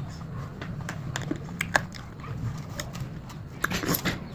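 Scattered small clicks and ticks over a low steady hum, with two sharper clicks a little after halfway.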